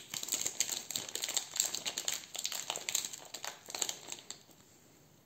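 Small clear plastic bag crinkling as it is handled in the hands, with many quick crackles; it stops about four seconds in.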